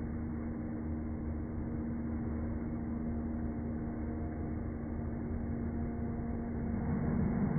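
A small engine running at a steady pitch, a constant low drone with no breaks.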